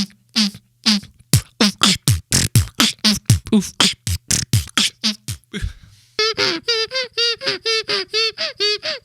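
Beatboxing: a fast run of percussive mouth sounds, about four or five a second with low thuds among them. About six seconds in it changes to a string of short pitched vocal notes, about four a second.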